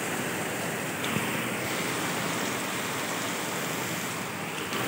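Heavy rain pouring steadily, with floodwater rushing into a roadside drain opening.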